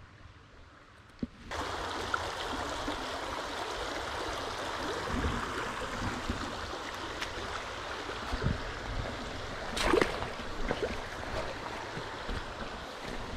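Mountain stream running over rocks in a shallow riffle: a steady rush of water that cuts in suddenly about a second and a half in. One brief, louder knock comes about ten seconds in.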